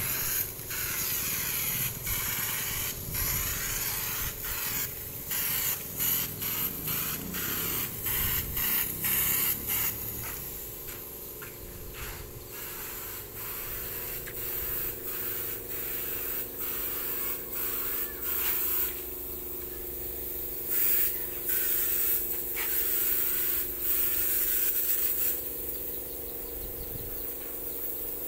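Compressed-air paint spray gun hissing in repeated on-off bursts as its trigger is pulled, spraying a paint finish: rapid short bursts for the first ten seconds or so, then fewer, longer ones. A small air compressor hums steadily underneath.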